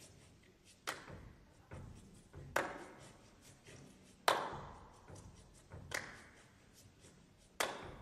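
Body percussion by two seated performers: five sharp hand claps about every second and three-quarters, with softer thigh and body slaps between them, each clap ringing on in a large hall.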